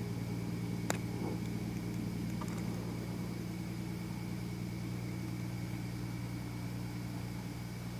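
Steady low mechanical hum with a faint high whine above it, unchanging throughout, and a single sharp click about a second in.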